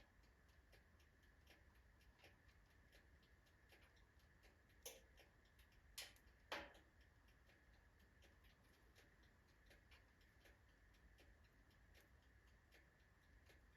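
Freshly loaded oak logs catching in a wood fire: faint, irregular crackling with three louder pops in the middle.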